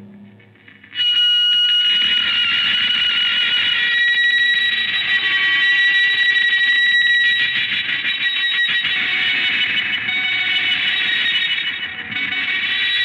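Improvised noise-rock electric guitars with effects: after a brief quieter lull, a loud, dense wall of shrill guitar feedback tones comes in abruptly about a second in and holds steady.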